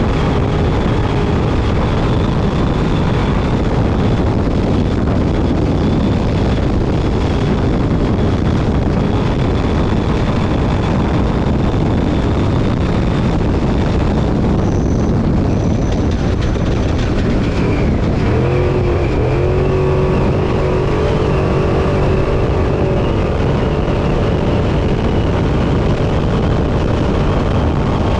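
Class 6100 off-road race truck at racing speed, heard from inside the cab: a loud, steady roar of engine, wind and rough-terrain noise. About two-thirds of the way in, the engine's note stands out as a clearer pitch, dipping briefly twice before holding steady.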